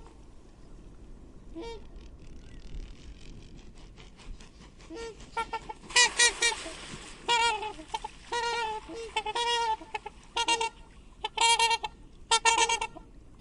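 Swans trumpeting: repeated short honking calls, a faint one early, then loud and frequent from about five seconds in, some overlapping.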